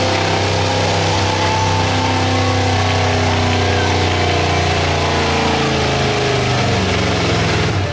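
Engine of a modified gas 4x4 Ford pickup running hard under load as it pulls a weight-transfer sled. The engine note is loud and steady, and its pitch drops a little in the last few seconds.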